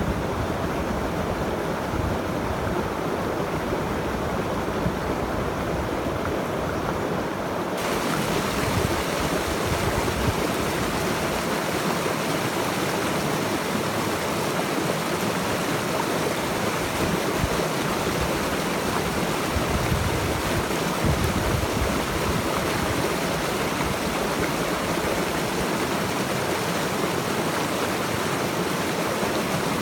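Steady rushing of a flowing stream. About eight seconds in, the sound changes abruptly to a brighter, hissier rush.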